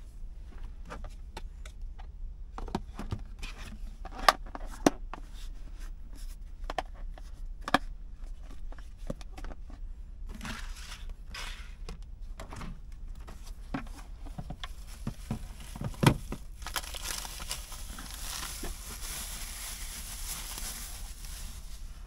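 Handling of cooking gear and food packaging: a run of small knocks and clicks with some crinkling, a few of them sharp, then a steady hiss for the last five seconds or so.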